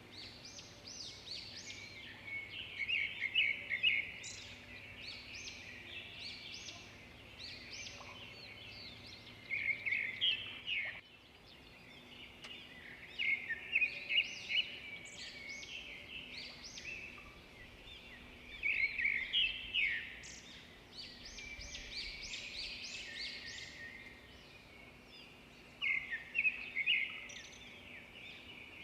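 Several small songbirds singing together, with overlapping quick chirps and trills and louder phrases every few seconds.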